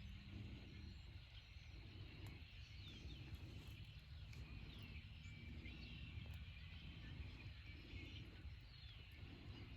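Faint outdoor ambience: a bird repeats short falling call notes about once a second over a low rumble.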